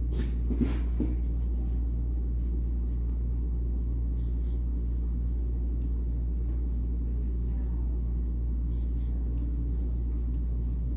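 A steady low hum, with faint scratching now and then as a crochet hook pulls cotton twine through stitches.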